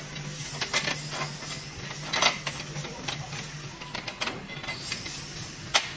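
Hand ratchet wrench clicking in short runs while tightening a band clamp on a large-diameter exhaust pipe, with two sharper metal knocks, about two seconds in and near the end, over a steady low hum.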